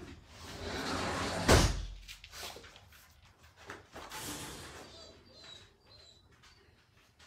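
Rustling that builds up, then one sharp bang about a second and a half in, followed by lighter clicks and rustling as a puppy treat is fetched from where it is kept.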